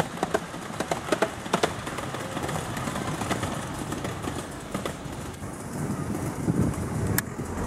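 Miniature railway carriages rolling past and away over the track, the wheels clicking sharply over rail joints and points in the first couple of seconds, then settling into a steady rumble with one more click near the end.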